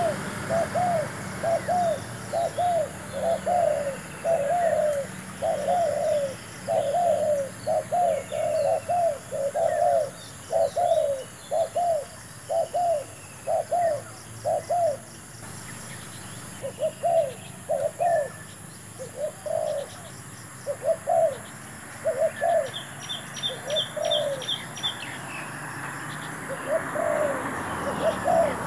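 Spotted doves cooing: a long run of short, arched coos, about two a second, breaking off briefly twice, in the middle and near the end. Faint chirps of small birds and a steady high whine sound behind them.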